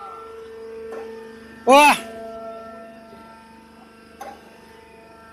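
A steady machine hum, broken about two seconds in by a short loud call from a person's voice that rises and then falls in pitch; faint clicks about one second in and again past four seconds.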